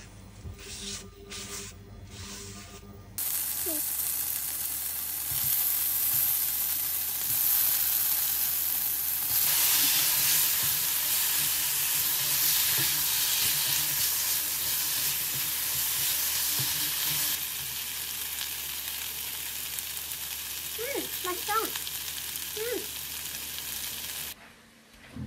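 Marinated pork belly sizzling as it is stir-fried with tongs in a stainless steel wok, with jeyuk seasoning sauce added. The sizzling starts suddenly about three seconds in and cuts off just before the end.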